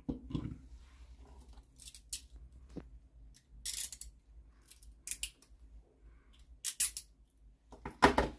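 Metal weapons being handled and set down on a table: a dull knock at the start as a revolver is laid down, then scattered sharp metallic clicks and clinks from knives and brass knuckles, the loudest cluster near the end.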